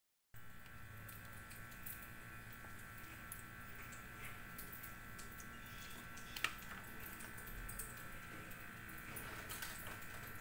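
Quiet kitchen room tone with a steady high electrical whine and a low hum, broken by small handling clicks, with one sharp click about six seconds in.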